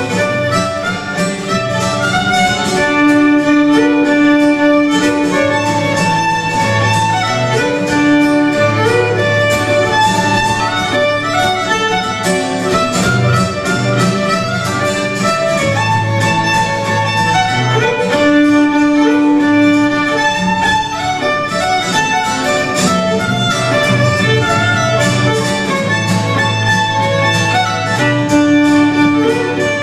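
Fiddle and guitar playing an American old-time fiddle tune, the fiddle carrying the melody over the guitar's rhythm and bass notes.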